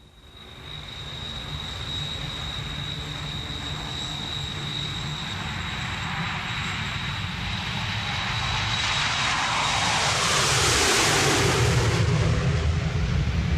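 Aircraft flyover sound effect fading in from silence: a steady high whine over a low rumble. The rushing noise swells to its loudest about ten to eleven seconds in as the plane passes over, then eases, with the whine dropping out near the peak.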